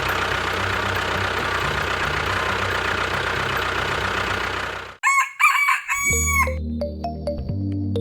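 A dense, steady noisy din for about five seconds that cuts off abruptly, followed by a short call whose pitch rises and falls, then background music with a steady low bass from about six seconds in.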